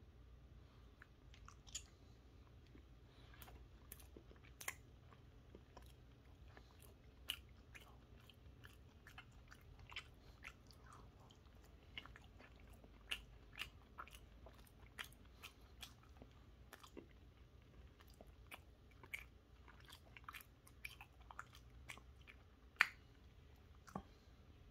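Someone chewing a chocolate-coated cake donut close to the microphone: faint, scattered wet mouth clicks and smacks, with one louder click near the end.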